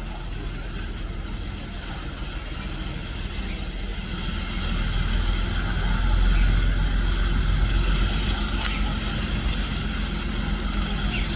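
Steady low mechanical rumble of heavy vehicles running, with a low engine hum, growing louder from about four seconds in.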